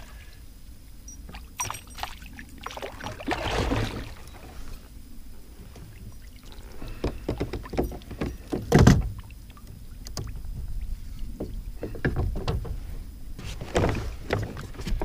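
A chain pickerel being lifted out of the water and handled in a kayak: irregular splashes, knocks and rustles, with one louder thump about nine seconds in.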